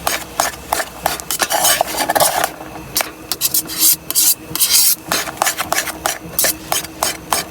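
Spatula scraping and stirring fried rice in a small pan, quick irregular strokes against the pan's bottom and sides as the sauces are mixed in.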